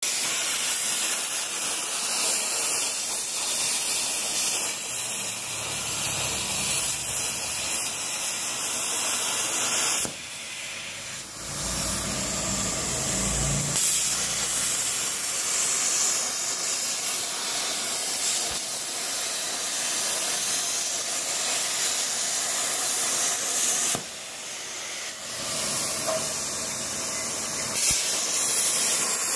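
CNC plasma cutter torch cutting steel plate, a loud steady hiss of the plasma arc. The hiss cuts out for about a second twice, once about a third of the way in and again near the end, then starts again.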